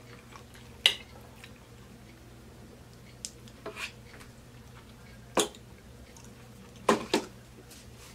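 Eating with a metal fork from a plate of chili cheese fries: about six sharp clicks and clinks, scattered and spaced a second or more apart, over a faint steady hum.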